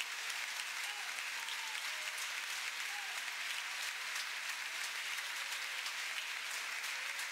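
A congregation applauding steadily: many hands clapping at once, with no break.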